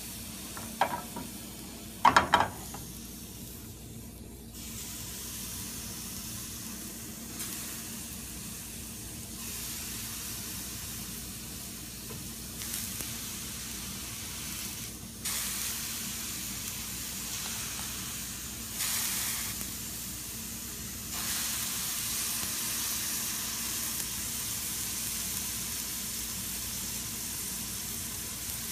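Water droplets sizzling on a hot nonstick frying pan: a steady high hiss that steps up louder several times in the second half. Two short, louder sounds come about one and two seconds in.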